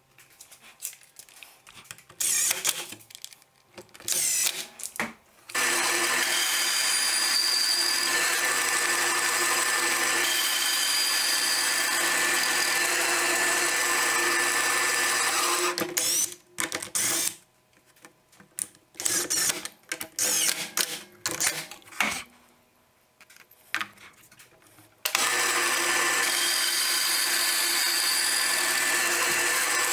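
Bandsaw running and cutting small pieces of wood, a steady machine noise in two long stretches, with short broken bursts and handling clatter before and between them.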